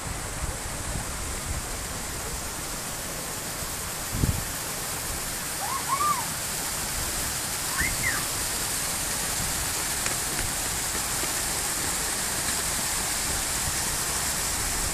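Steady rushing noise like running water, with a few brief high chirps around the middle and a dull thump about four seconds in.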